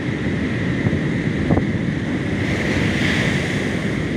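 Ocean surf breaking and washing on the beach, with wind buffeting the microphone; a wave swells louder about three seconds in.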